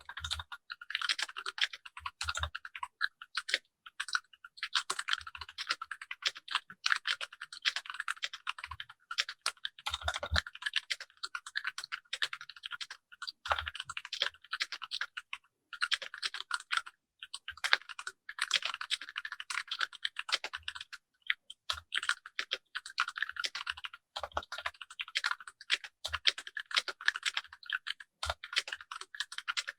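Typing on a Keychron K6 mechanical keyboard resting on a desk mat: fast runs of key clicks broken by a few brief pauses.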